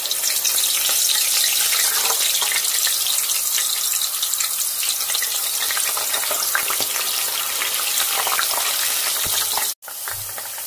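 Thin potato slices deep-frying in hot oil: a loud, dense, steady sizzle and crackle of oil bubbling around the fresh slices. It breaks off for an instant near the end, then carries on a little quieter.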